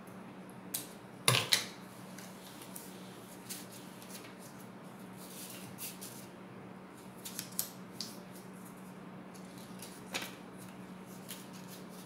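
Scissors cutting paper, with a few sharp snips in the first two seconds. After that come scattered soft rustles and creases of paper being folded by hand.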